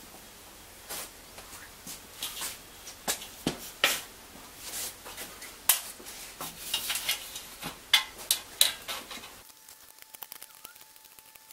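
Sheet-metal strips handled and scribed on a workbench: irregular metallic clinks, taps and scrapes. These stop abruptly near the end, leaving only faint ticks and a faint steady tone.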